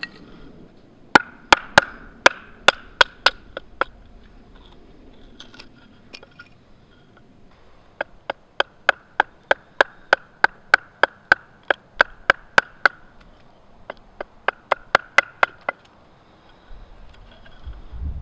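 A wooden stick baton striking the spine of a knife set into a wooden billet, batoning the blade through to split wood off down to a stop cut. Three runs of sharp knocks, about three a second, with short pauses between them.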